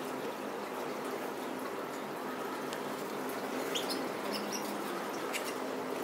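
Caged canaries giving a few short, high chirps, mostly in a cluster about two-thirds of the way in and once more near the end, over a steady hiss with a low hum.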